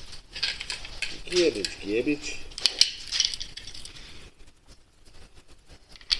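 Light metallic clattering and clinking as a worn-out grinder wheel is tossed into a garbage can and settles, with a short one-word spoken remark.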